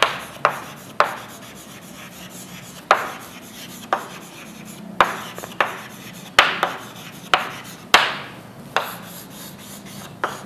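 Writing strokes on a board: about a dozen short, scratchy strokes and taps at irregular intervals, each starting sharply and fading quickly.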